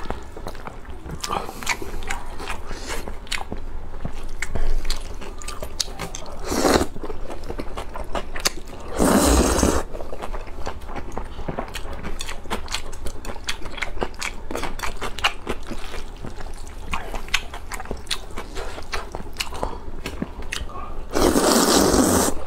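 Close-miked eating of wide flat mianpi noodles: a continual run of wet chewing, mouth clicks and lip smacks, broken by loud slurps of noodles about 6 and 9 seconds in and a longer one near the end.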